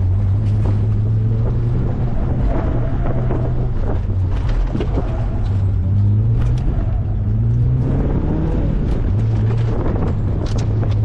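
Mazda MX-5 roadster's four-cylinder engine heard from the open cockpit, its note rising and falling several times as the car accelerates and slows, with wind noise over the open top.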